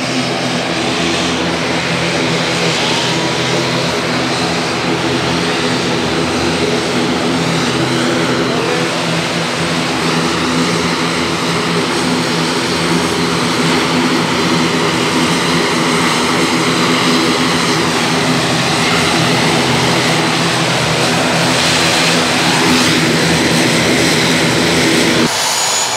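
ATR-72 twin-turboprop airliner taxiing in close, its propellers running with a steady drone of several pitches that grows slowly louder as it nears. The drone cuts off abruptly near the end.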